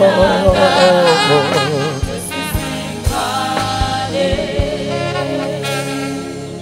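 Live gospel worship music: a man sings into a microphone with a wavering, held voice over sustained keyboard-like chords and a drum beat. The singing is strongest in the first couple of seconds and then eases into longer held notes.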